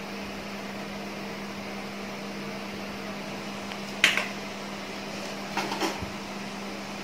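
Steady electrical hum and fan noise of an induction cooktop under a steel pot, with one sharp clink about four seconds in and two lighter knocks a second and a half later.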